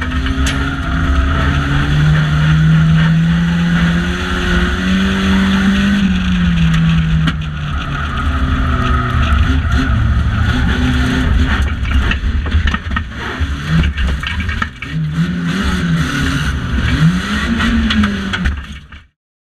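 Banger racing car's engine heard from inside its stripped cabin, its note rising and falling as it drives round the track, with sharp knocks and rattles from the bodyshell. The sound cuts off suddenly near the end.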